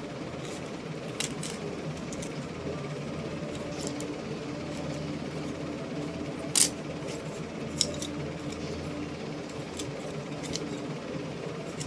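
Steady low rumble with scattered light clicks, the loudest a sharp click about six and a half seconds in and another a second later.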